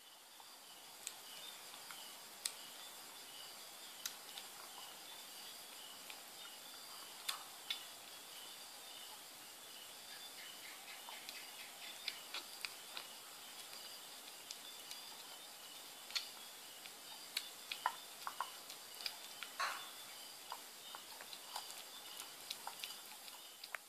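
A kitten eating wet cat food from a ceramic bowl: scattered small clicks and smacks of licking and chewing, some of them tongue or teeth against the bowl, coming more often in the second half.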